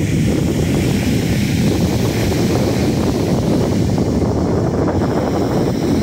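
Wind blowing on the microphone, a steady low rush, over the wash of ocean surf breaking on the beach.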